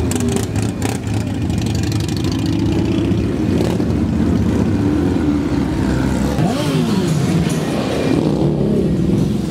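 Several sport-bike engines running and revving as the motorcycles ride slowly past, the pitch rising and falling with each blip of the throttle, most clearly about six to eight seconds in.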